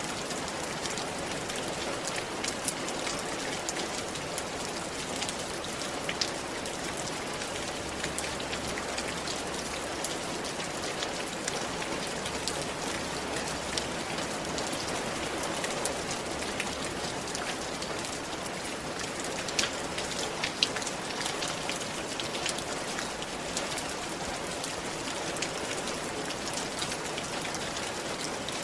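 Steady rain falling on a roof: a constant hiss of rainfall dotted with many individual drop taps, a few louder strikes about twenty seconds in.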